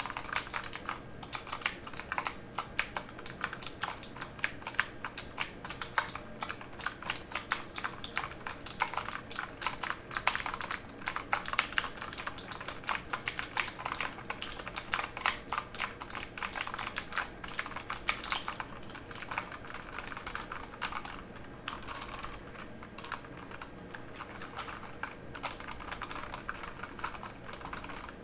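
Typing on a mechanical keyboard: a dense, fast run of key clicks that thins to slower, softer key presses after about nineteen seconds.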